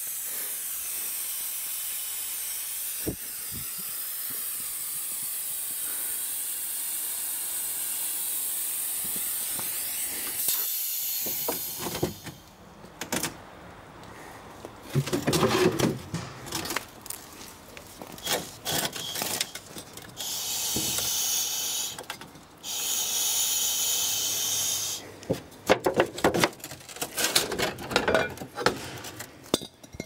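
Compressed air hissing steadily out of a large pneumatic ram for about the first eleven seconds, then stopping. Irregular knocks and rattles follow, with two shorter blasts of air hiss partway through.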